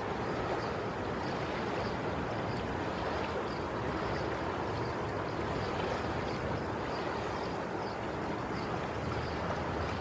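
Sea waves washing on the shore, a steady rushing noise without distinct surges.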